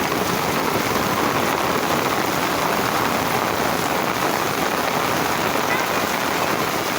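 Heavy rain pouring down steadily, a loud, even hiss of drops on the ground.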